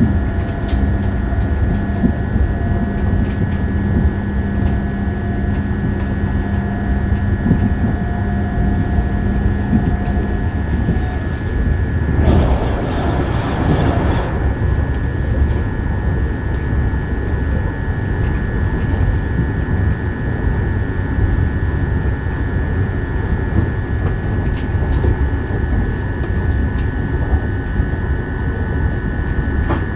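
Škoda Vagonka EJ575 electric train running at speed, heard from inside: a steady rumble of wheels on rails with a constant high whine, and a low hum that stops about ten seconds in. About twelve seconds in, a train passing close on the next track brings a rush of noise lasting about two seconds.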